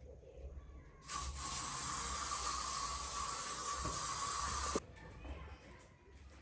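A steady hiss that starts suddenly about a second in and cuts off sharply nearly four seconds later.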